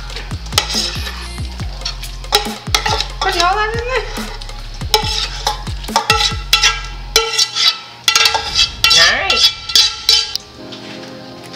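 Slotted metal spatula scraping and knocking against a stainless steel skillet as a wet ground-meat mixture is scraped out into a pot of rice: many short scrapes and taps.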